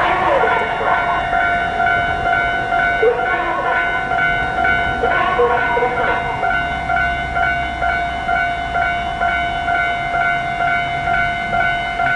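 Japanese level-crossing warning bell ringing continuously, a bright electronic 'kan-kan' ding repeated about twice a second.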